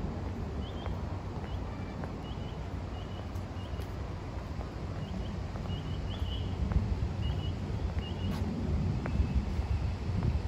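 A small bird chirping, short high notes often in pairs, repeating about twice a second until about eight seconds in, over a steady low rumble of wind on the microphone.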